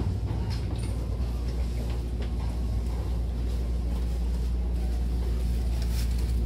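Steady low rumble of a Hankyu train running, heard inside the passenger car, with a few brief sharp clicks from the running gear.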